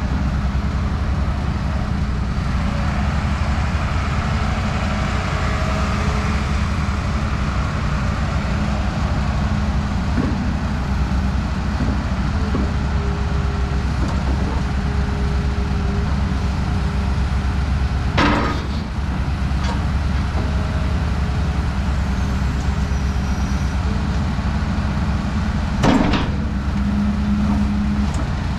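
Diesel engine of a Hyundai R245LR long-reach hydraulic excavator running steadily, with a deep drone. A sharp knock about two-thirds of the way through and another near the end.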